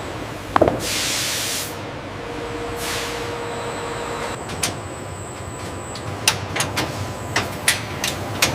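Factory machine noise: a sharp metallic clank with a falling ring, followed by about a second of hissing air or spray, a weaker hiss, then a series of irregular sharp clicks over a faint steady hum.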